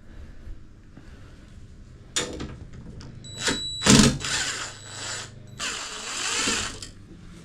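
Several short bursts of mechanical noise, like a tool or mechanism working, after a sharp click about two seconds in.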